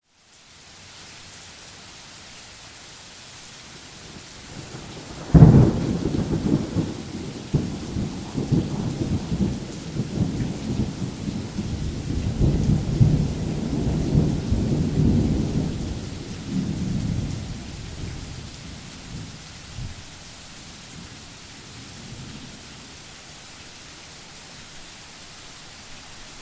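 Steady rain falling, with a thunderclap that cracks suddenly about five seconds in and rolls on in a long low rumble for around twelve seconds before fading back to the rain.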